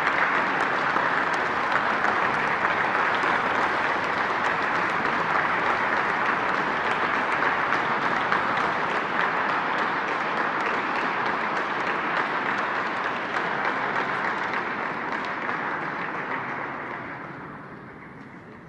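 A seated audience applauding steadily, the clapping fading away near the end.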